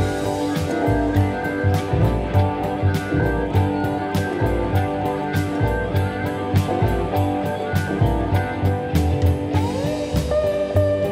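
Background music: guitar over a steady drum beat, with a note sliding up near the end.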